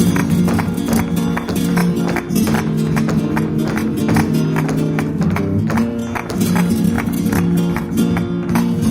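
Flamenco music in the farruca style, led by acoustic guitar with a steady run of sharp strummed chords.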